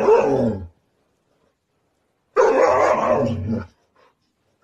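A husky "talking": two drawn-out, wavering vocal calls. The first ends under a second in. The second starts about two and a half seconds in and lasts just over a second.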